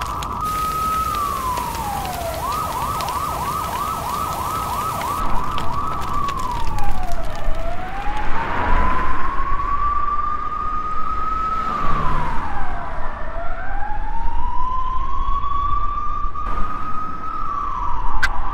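Emergency vehicle siren: after a fall in pitch it gives a short run of fast yelps, then settles into slow wails that sweep down and climb back up. A rushing noise runs behind it from about six seconds in.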